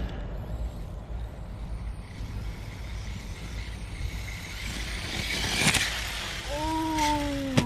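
Arrma Talion 6S electric basher RC car driving over dirt, its noise building to a sharp crash a little under six seconds in, followed by a falling whine near the end.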